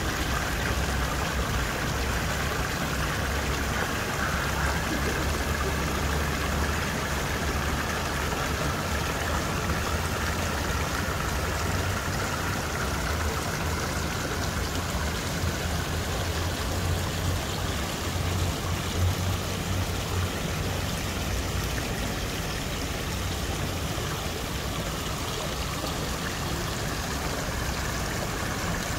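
Water of a garden waterfall and stream running steadily, with a low rumble underneath.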